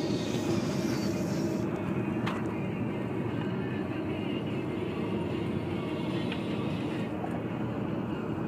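Steady road and engine noise inside a moving car's cabin, with a high hiss that drops away about two seconds in.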